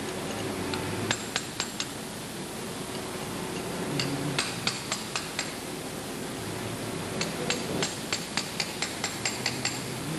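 Sharp metallic clinks of a hand tool working the steel nuts on an exhaust valve's spindle-guide flange, in three quick runs: a few about a second in, about six near the middle and about a dozen near the end. A steady hiss runs underneath.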